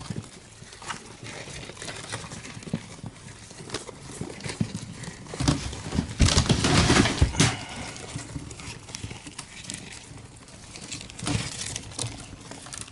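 A pile of Syrian (golden) hamsters scrambling over each other on newspaper, their paws scratching and rustling the paper in an irregular patter of small scrapes and clicks. A louder spell of scuffling and rustling comes about six to seven and a half seconds in.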